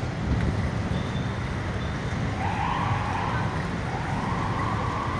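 City street traffic noise: a steady low rumble of cars and motorcycles, with two brief brighter swells in the middle.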